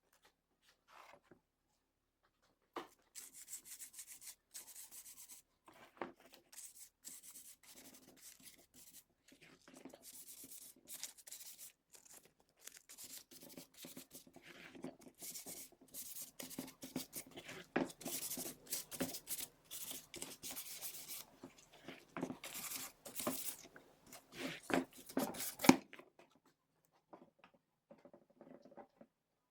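Sandpaper rubbed by hand over wood in many quick, irregular strokes, starting about three seconds in, growing louder, and stopping a few seconds before the end.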